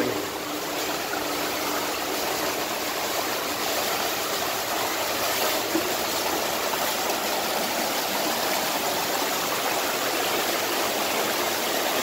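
A shallow rocky creek rushing and splashing over stones in small cascades, a steady, even sound of flowing water.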